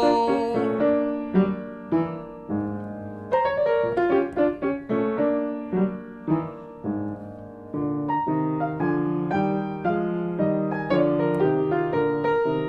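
Piano playing an instrumental break in a show tune: notes and chords struck and left to ring, settling into steady, evenly spaced chords in the second half.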